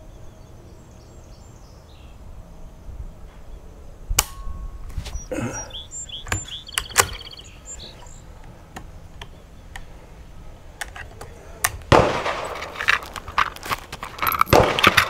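A single sharp crack from a bolt-action Mossberg 640K .22 Magnum rifle firing about four seconds in, followed by short metallic clicks as the bolt is worked. Rustling and clicking handling noise at the bench near the end, louder than the shot.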